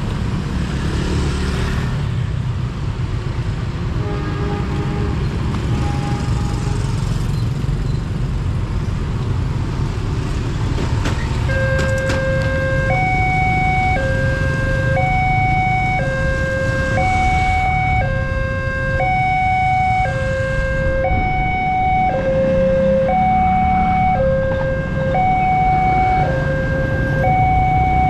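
Railway level-crossing warning alarm switching on about eleven seconds in: an electronic two-tone alarm alternating steadily between a low and a high note, a little over a second per low-high cycle, signalling that the crossing barriers are closing for a train. Steady road traffic runs underneath.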